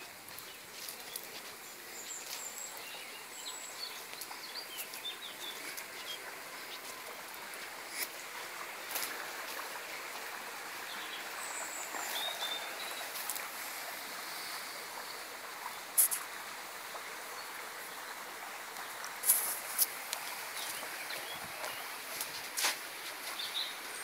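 Steady rush of running water, with birds chirping now and then over it. A few sharp clicks stand out in the second half.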